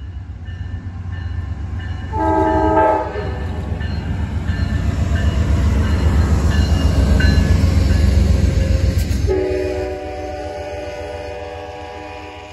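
GE P42DC diesel locomotive passing close by at speed: a short horn blast about two seconds in, then the engine and wheels grow to a loud rumble as the locomotive goes by. After it passes, the rumble falls away as the coaches roll past under a steady chord of tones lower in pitch than the first blast.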